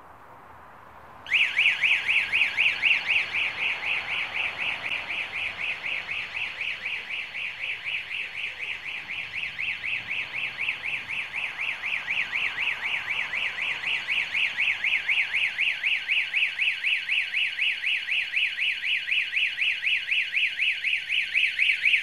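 Alarm siren, set off by a motion-sensor floodlight detecting someone approaching, starts about a second in and sounds a loud, high-pitched fast warble, about four sweeps a second.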